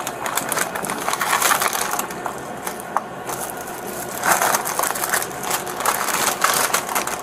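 Plastic candy and snack bags crinkling and rustling as they are handled and laid out on a shop counter, in uneven bursts.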